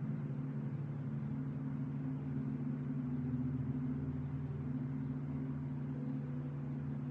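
Soft background meditation music: a low, sustained synth drone of several steady tones, with a higher tone joining about six seconds in.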